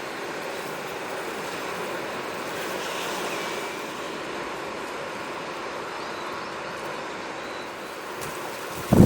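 Sea waves washing steadily on the shore, a continuous rushing wash, with a faint short chirp about three seconds in and a sudden low thump at the very end.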